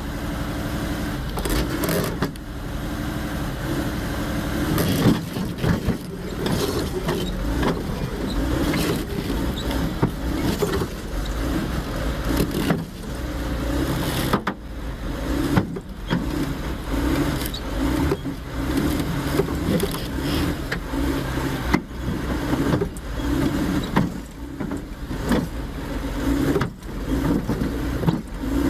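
Heavy vehicle engine running steadily as a multi-axle lowboy trailer carrying a crawler bulldozer rolls over packed snow, with many short knocks and rattles throughout.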